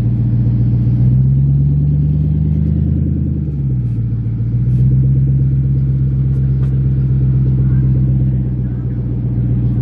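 Car engine and exhaust droning steadily at low pitch while driving. The note climbs slowly for a couple of seconds, drops about three and a half seconds in, then holds level.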